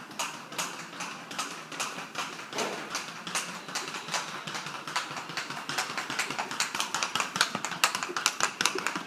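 A Paso Fino horse's hooves on a concrete barn floor: a quick, even patter of hoofbeats that grows louder as the horse comes closer.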